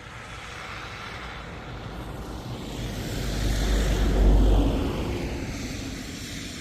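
A road vehicle passing by: tyre and engine noise swelling to a peak about four seconds in, then fading as it drops in pitch.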